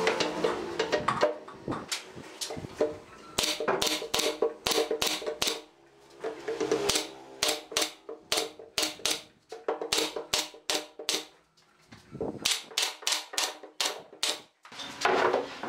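Pneumatic nail gun firing nails into pine shelf boards: a quick series of sharp shots in irregular bursts of several a second, with short pauses in between. At the start, wooden knocks as the boards are set in place.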